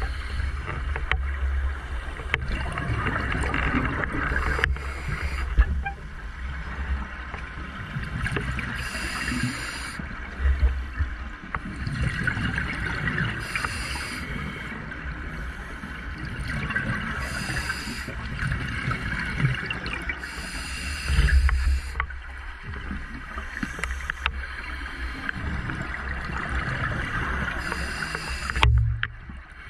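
Scuba diver breathing underwater through a regulator: hiss and gurgling bubbles coming back in cycles a few seconds apart.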